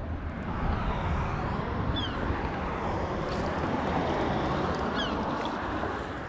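Road traffic on the bridge overhead: a steady rushing of tyres as vehicles pass, swelling about a second in and easing off near the end.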